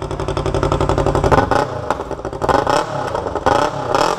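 Yamaha R25 motorcycle's parallel-twin engine running with its exhaust removed, very raspy and shrill. It idles with rapid crackling firing pulses, then is blipped several times from about a second in.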